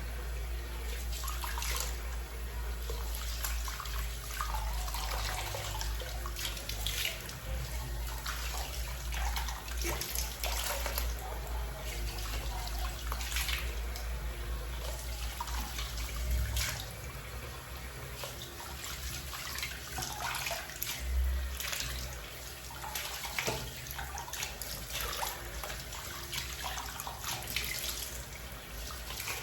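A water tap running into a sink, with irregular splashing as a face is rinsed with the hands, washing off a charcoal face mask.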